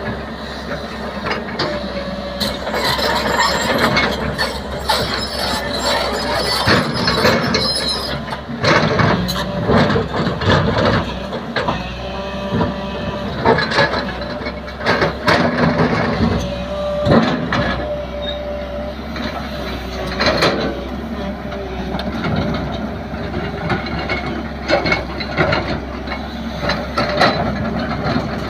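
JCB 3DX backhoe loader at work: its diesel engine running under a steady stream of metallic clanks and knocks, with short high squeals now and then.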